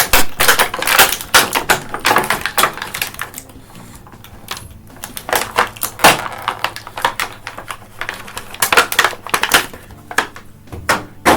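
Plastic action-figure packaging crackling and clicking as a figure and its accessories are handled and unpacked: a dense run of sharp clicks for the first few seconds, then scattered single clicks.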